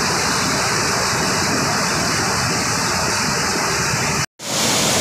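Rushing floodwater of a rain-swollen mountain stream, a steady loud roar of turbulent muddy water. It cuts out abruptly for a split second about four seconds in, then returns.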